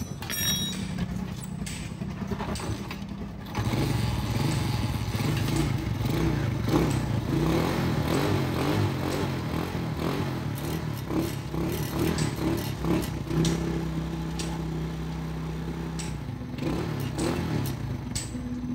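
A small engine running, getting louder about three and a half seconds in, its pitch wavering up and down, then holding steady for a few seconds near the end, with light clatter over it.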